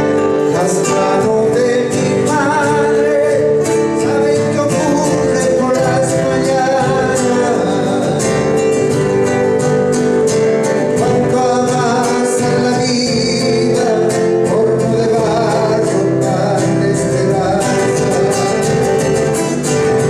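Live Argentine folk music: two acoustic guitars strumming and picking together, with a man singing over them.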